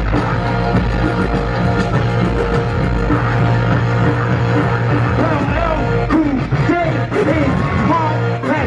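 Live hip-hop music played loud through a concert sound system, with a steady heavy bass. Voices shout over the music from about halfway through.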